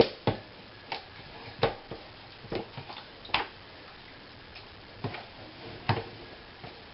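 Light, irregular taps and clicks of kitchen handling while raw chicken pieces are seasoned and turned over in a container, about nine sharp knocks with a lull in the middle.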